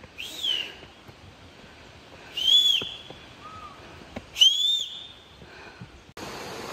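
Three clear whistled notes about two seconds apart, each short and arching up then down in pitch.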